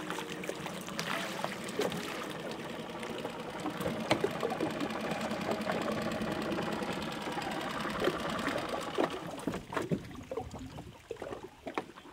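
Running river water splashing and trickling, with scattered small knocks and clicks of handling over it.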